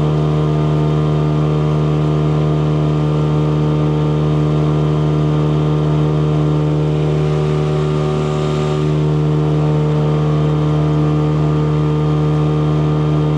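A small boat's motor running at a steady speed under way, heard from on board: an even, unbroken engine drone.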